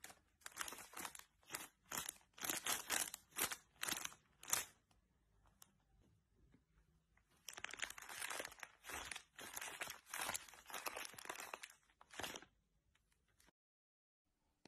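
Plastic snack bags crinkled and crumpled by hand in short bursts. There are two runs of crinkling with a pause of a couple of seconds between them.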